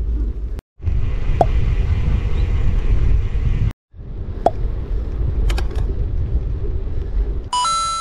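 Wind buffeting the microphone and rumble while riding a mountain bike, in three stretches cut off abruptly by edits, followed near the end by a short electronic beep.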